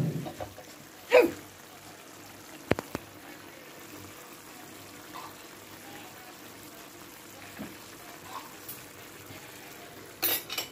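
Tomato-and-meatball sauce simmering in a clay tajine, a faint steady bubbling. A sharp click sounds near three seconds in, and a short rustling burst near the end.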